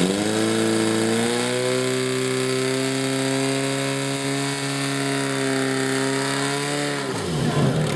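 Portable fire pump's engine run up to high revs as the pump drives water out to the hose lines, its pitch climbing at the start and then holding steady. About seven seconds in it is throttled back and the pitch falls away.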